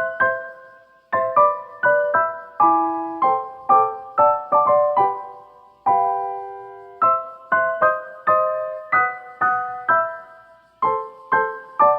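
Background music: a piano or electric piano playing a gentle melody of struck notes, each ringing and fading.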